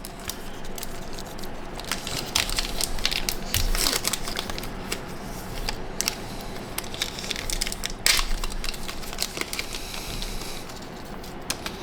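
Plastic trading-card pack wrapper crinkling and crackling as baseball cards are handled, with irregular sharp crackles throughout, the loudest about eight seconds in.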